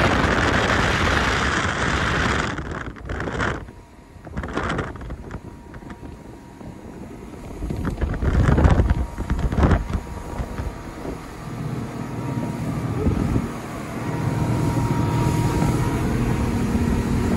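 Speedboat's outboard motor running at speed, with wind gusting on the microphone; the steady engine drone comes through more clearly near the end.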